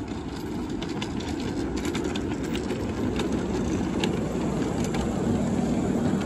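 Ride-on miniature railway train, a model BR Class 04 diesel shunter hauling passenger cars, running past on the track. It is a steady low rumble that grows louder as it comes close, with sharp clicks from the wheels over the rail joints in the middle.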